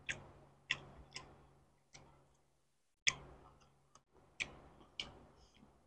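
Quiet eating sounds: about six faint, scattered clicks, over a low steady hum.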